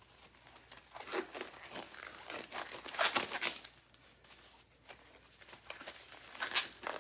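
Disposable exam gloves being pulled onto the hands: irregular bursts of rustling and crinkling.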